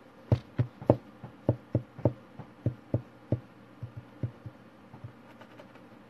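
A quick, slightly uneven series of about fifteen dull knocks on a hard surface, roughly three a second, like tapping or drumming on the desk the phone stands on. It tails off after about five seconds.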